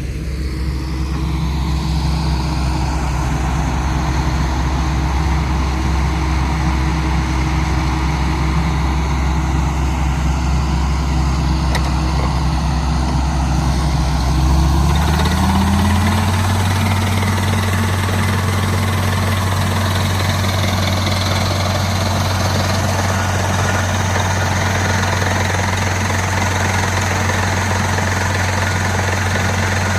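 Rock drilling machine running with a steady engine drone; about halfway through the engine speeds up and then holds at the higher pitch.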